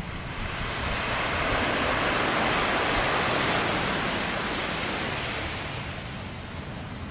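Surf: a wave breaking and washing up the shore, a hiss that swells over the first few seconds and then fades.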